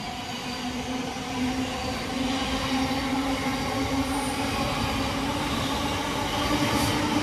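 Class 700 electric multiple unit running through the station, a steady hum from its traction equipment edging slightly up in pitch over rolling wheel and rail noise, growing a little louder.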